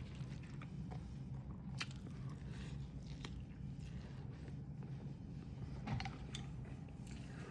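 A person chewing a mouthful of rice vermicelli salad with shrimp and fresh lettuce, with scattered soft crunches, over a steady low hum.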